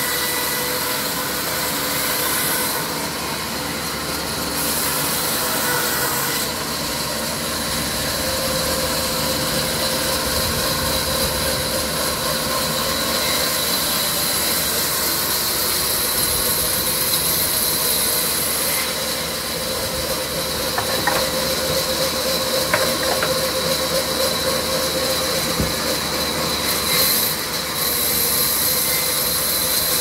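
Sawmill machinery running steadily, a constant mechanical din with a high hiss and a few faint clicks past the middle.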